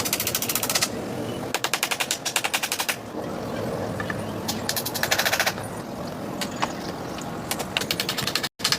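Several bursts of rapid, evenly spaced rattling clicks, about ten a second, each lasting roughly half a second to a second and a half, over a steady background hiss.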